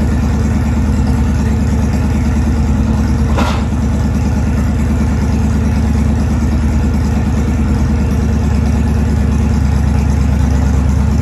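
Honda Fury's V-twin engine idling steadily through a Cobra aftermarket exhaust, a loud, even, lumpy pulse. One brief sharp click about three and a half seconds in.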